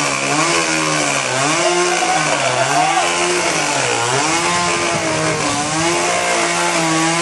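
Chainsaw engine running at high speed, its pitch dipping and rising again and again.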